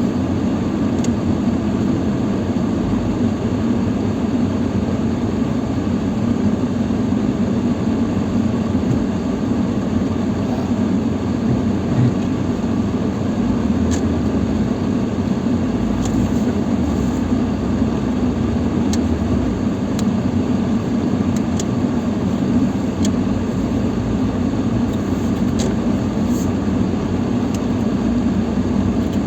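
Lada Niva Travel's 1.7-litre four-cylinder engine running steadily under load as the car crawls through deep snow in low range with the centre differential locked. A few faint short ticks sound here and there over the steady engine drone.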